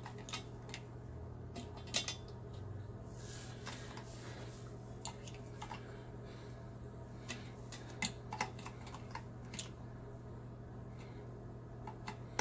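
Light scattered clicks and rattles of plastic and metal pop-up drain parts being handled and fitted together, the perforated clevis strap and pivot rod being pushed onto their clip, over a steady low hum.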